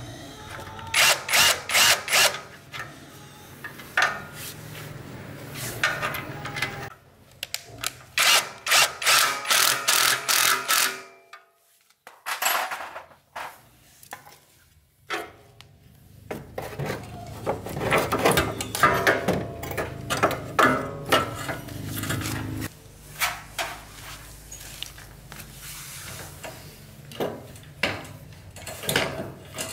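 Workshop tool noise on motorbike parts: runs of quick scraping and clattering strokes, with a low hum under some of them and a brief lull about eleven seconds in.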